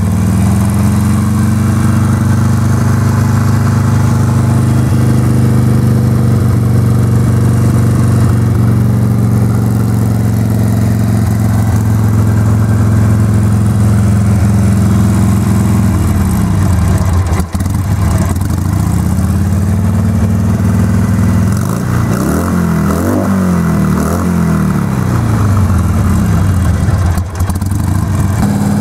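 2005 Harley-Davidson Sportster 883's air-cooled V-twin running at idle on choke just after starting. The engine speed sags about halfway through, then rises and falls several times.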